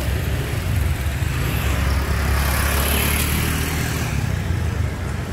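Motor vehicle engine noise: a steady low rumble with a broader hiss that swells and fades around the middle, as of a vehicle passing close by.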